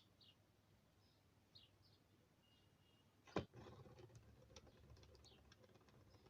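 Mostly near silence with faint, short high chirps. About three and a half seconds in comes a single sharp knock, followed by a low rumble and scattered light ticks.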